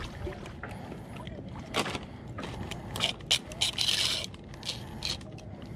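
Handling noises as a caught fish is measured with a retractable tape measure: scattered clicks and scrapes, with a longer hissy scrape about three to four seconds in as the tape is drawn out along the fish.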